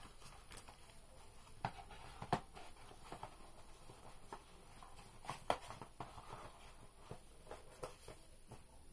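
Light, scattered clicks and taps of small objects being handled by hand, the sharpest about two and a half and five and a half seconds in.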